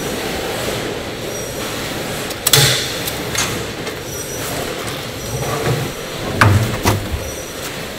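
Knocks and clanks of a plastic basket and a latched steel lid being handled in a stainless-steel spin dryer, over a steady factory background noise. One sharp knock comes about two and a half seconds in, and two more close together near the end.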